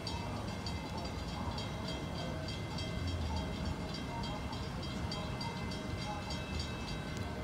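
Diesel locomotives of an approaching freight train (GP38-2s and a PR20 genset unit) rumbling steadily, with a high bell ringing steadily, about two to three strikes a second.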